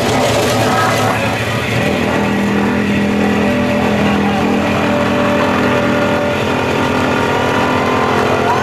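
A steamroller's engine running steadily, its note changing slightly about two seconds in.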